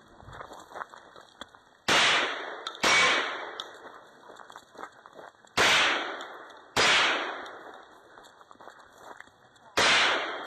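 Five gunshots in a match string, each a sharp crack with a ringing decay, fired at uneven intervals: two about a second apart, a pause, two more about a second apart, and a last one near the end.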